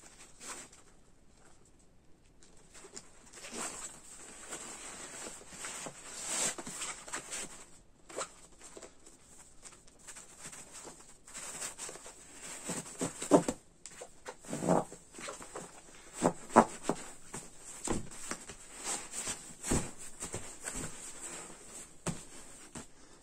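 Nylon compression sack being handled: fabric rustling as its webbing straps are pulled tight through plastic buckles, with scattered sharp clicks and knocks, the loudest about halfway through.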